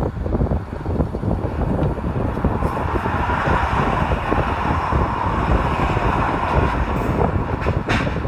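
Steady engine and road noise of a car on the move.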